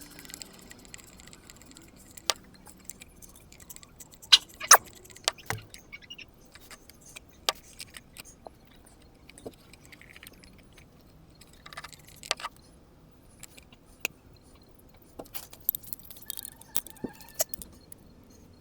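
Hand tools and metal parts clicking and clinking as they are handled: scattered single sharp taps, a couple of louder clinks about four to five seconds in and again around twelve seconds, with quiet between.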